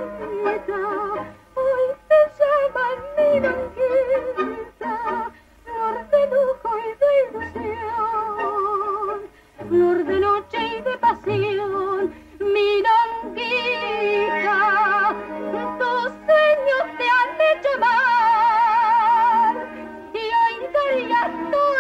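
A woman singing a tango with a wide vibrato on the held notes, over instrumental accompaniment, from a 1940s film soundtrack.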